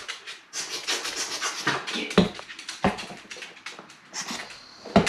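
Pembroke Welsh Corgi panting hard in quick, breathy strokes several times a second, worn out from play. A few sharp thumps cut in, about two and three seconds in and again near the end.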